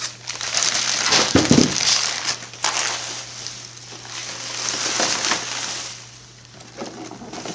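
Paper crinkling and tearing as a present is unwrapped, in bursts over the first three seconds and again about five seconds in, with a dull low bump about one and a half seconds in.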